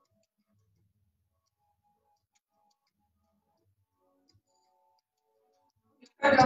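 Near silence with faint, scattered short tones for most of the stretch, then a song comes in abruptly near the end with a loud singing voice over music.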